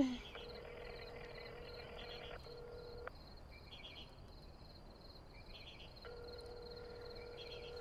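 Telephone ringback tone as an outgoing call rings unanswered: a steady low tone sounding twice, about two to three seconds each, with a pause of about three seconds between. Crickets chirp steadily throughout, and a short sharp sound comes right at the start.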